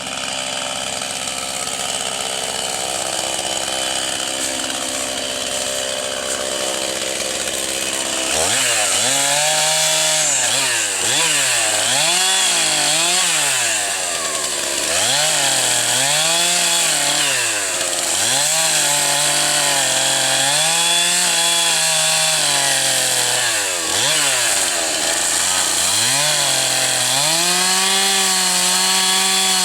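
Two-stroke chainsaw engine running. From about eight seconds in it revs up and its pitch keeps dipping and climbing again every second or two, as when a chainsaw works through a cut. Near the end it holds steady at high revs.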